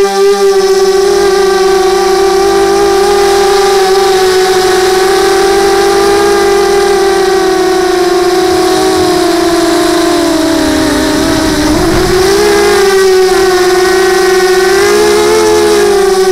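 Multirotor drone's electric motors and propellers whining steadily, recorded by a camera mounted on the aircraft. The pitch sags about ten seconds in and then climbs back up.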